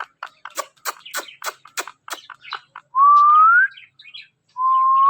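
Pet parrot chattering in a quick run of short clicks and chirps, about five a second, then giving two louder rising whistles, each under a second long.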